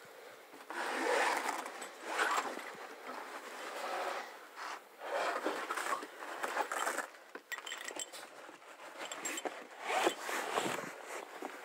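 Climbing shoes and clothing scraping and brushing against rock in irregular bursts as a climber moves up a boulder.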